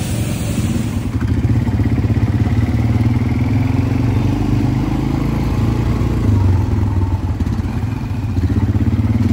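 ATV (quad bike) engine running as the bike rides along, heard close up from the rider's seat; it gets louder about a second in as the bike gets under way.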